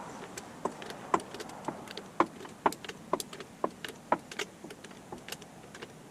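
Tools and parts being handled during engine work: irregular sharp clicks and taps, about two a second.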